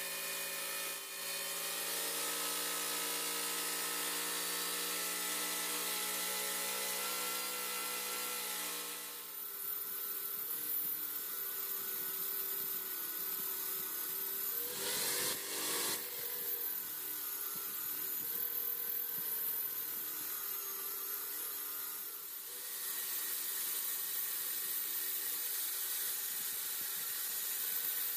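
Electric drill driving a homemade wood lathe, and an angle grinder working the spinning wooden blank: a steady motor whine that changes about nine seconds in. About halfway through comes a louder burst of grinding as the disc bites into the wood.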